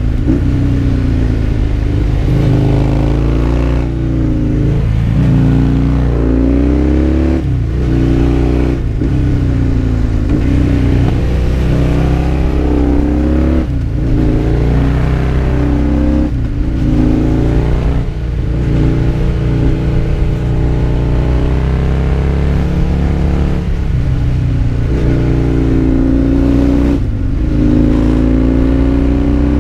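Husqvarna Nuda 900's parallel-twin engine heard from on board while riding. The revs climb and drop again and again, with short breaks in the sound every second or two as the throttle closes or a gear changes.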